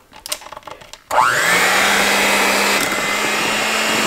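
A few light knocks, then an electric hand mixer switched on about a second in, its motor whining up to speed and running steadily as the beaters churn through a pot of mashed potatoes.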